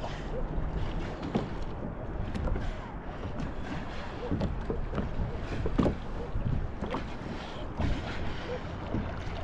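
Sea water lapping and splashing against a kayak, with irregular splashes about once a second and wind rumbling on the microphone.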